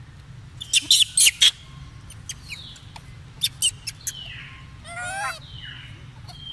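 A troop of macaques calling: a quick run of sharp, high shrieks about a second in, a few more around three and a half seconds, and a wavering, pitched call near five seconds.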